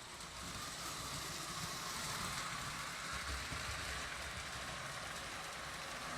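Postwar Lionel O gauge steam train running on three-rail track: a steady rolling rattle of wheels and motor, getting louder in the first second as it comes near.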